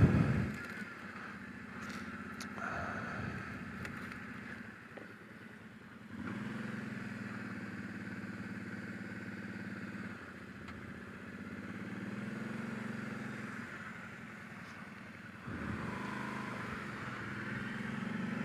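Kawasaki Brute Force 750 ATV's V-twin engine running at low trail speed, its note swelling and easing several times as the throttle is opened and closed.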